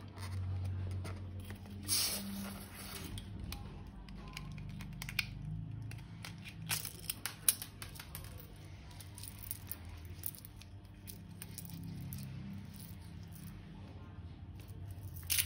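Faint crinkling and tearing handling noise with scattered sharp clicks, from a rubber balloon being cut open and slime handled.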